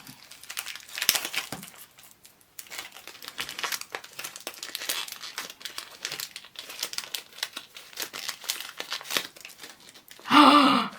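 Mystery pin blind-box packaging being crinkled and torn open by hand: a run of irregular crackles and rustles. A short, loud vocal exclamation comes near the end.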